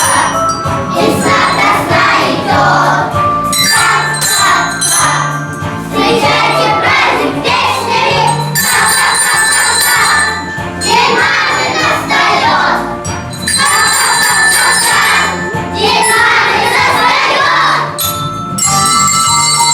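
A children's song with jingle bells ringing throughout and voices singing together over a backing track with a steady beat.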